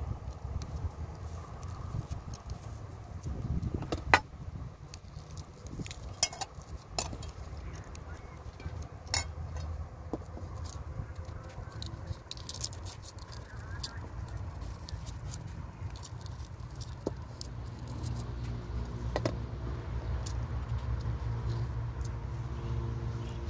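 Vegetables being peeled and cut by hand: scattered sharp clicks and scrapes of a peeler and a kitchen knife against the vegetable and a plastic cutting board, over a steady low rumble.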